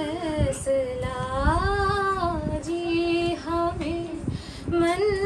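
A woman singing unaccompanied, holding long notes that slide up and down in pitch.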